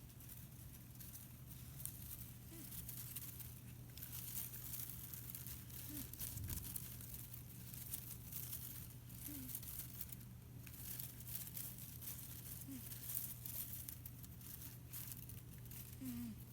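A sleeping cat snoring faintly, a small rasp with each breath about every three and a half seconds.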